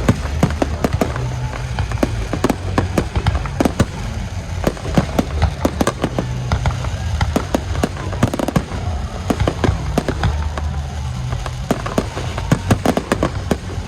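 Fireworks display: a fast, irregular run of bangs and crackles throughout, over a steady low rumble.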